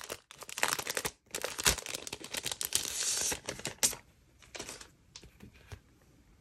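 Plastic packaging and a frosted plastic planner dashboard crinkling and rustling as they are unwrapped and handled, busy for about four seconds, then only a few faint rustles and taps.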